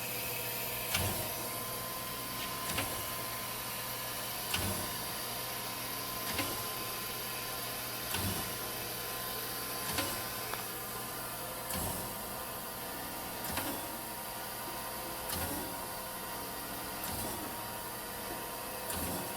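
Chevalier FSG-1632AD-II surface grinder running in automatic grinding mode: a steady hum from the spinning wheel and drive, with a short knock about every two seconds as the hydraulic table reverses at each end of its back-and-forth stroke.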